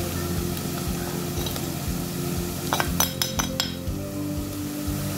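A spoon clinking against a plate as ground spices are tapped and scraped off it into a frying pot, a quick run of about half a dozen clinks in the middle, over oil and onions frying and a steady low hum.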